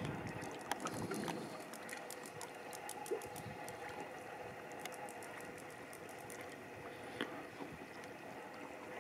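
Water dripping and lapping around a kayak between paddle strokes, faint: a quick run of small ticks in the first half, then a low steady wash.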